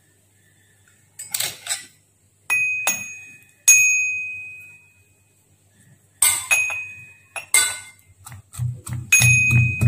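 Stainless steel bowls and a metal utensil clinking, each knock ringing briefly, then near the end a metal pestle pounding garlic cloves in a small steel cup with quick, regular thuds.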